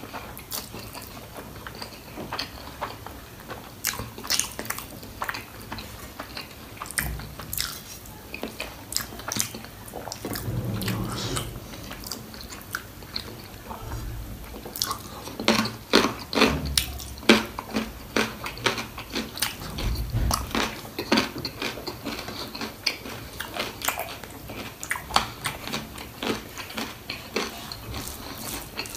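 Close-miked eating of goat trotters (mutton paya) in gravy with rice: wet chewing, biting and mouth clicks, busier and louder in the second half, with a few dull low thumps.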